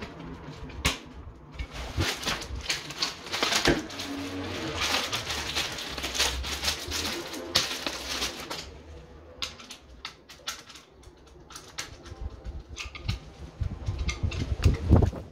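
Light clicks, taps and scrapes of hand wiring work: a screwdriver and copper wires being handled at a plastic double wall-socket faceplate. A louder cluster of knocks comes near the end.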